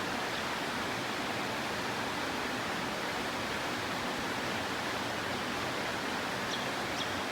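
Steady, even rushing noise with no change in level, and a few faint short high chirps near the end.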